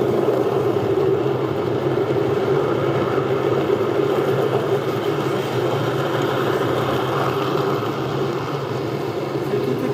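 Long model freight train running past close by on the layout: a steady rumble of its wagons' metal wheels rolling over the rails, easing slightly near the end.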